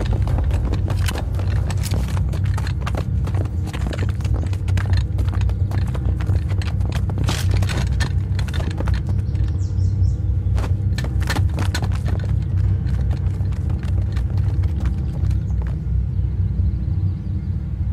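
Action-film soundtrack under a squad's advance: a steady low drone overlaid with rapid, irregular clicking and tapping, with no speech.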